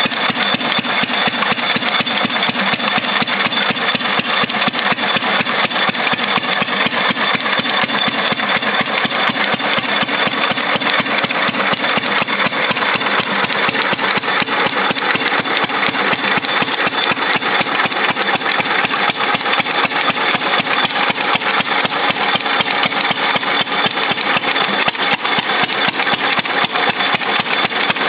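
Engine of a 1928 Fairbanks Morse portable generator set running steadily at constant speed, with a rapid, even exhaust beat.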